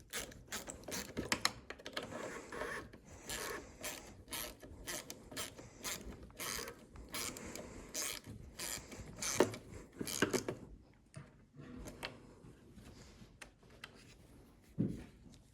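Hand ratchet wrench clicking in quick, irregular runs as the carburetor's mounting screws are driven in on a lawnmower. The clicking thins out after about ten seconds.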